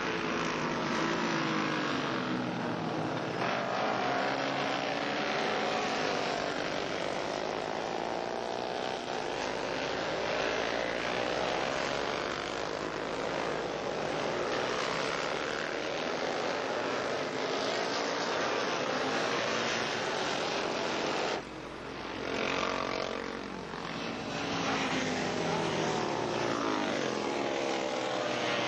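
Historic-class racing motorcycles at speed, their engines passing one after another, the pitch rising and falling with each pass. About three quarters of the way through the sound drops sharply for a moment, then builds again as more bikes come by.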